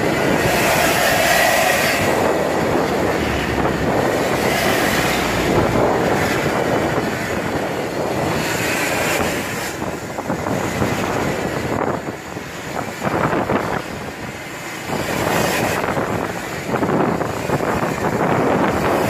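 Diesel cargo truck driving with a modified 'jet darat' exhaust that gives a loud, jet-like whoosh, heard from close behind. The sound drops for a few seconds past the middle, then comes back.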